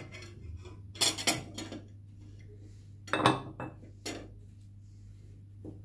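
Kitchen clatter from a plastic cup knocking and scraping against a glass mixing bowl as yogurt is emptied into it: short clinks and knocks in clusters about a second in and around three seconds in, with one more knock a little later.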